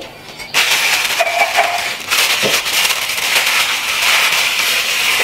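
A stove burner lit to heat water: a steady crackling hiss that starts suddenly about half a second in.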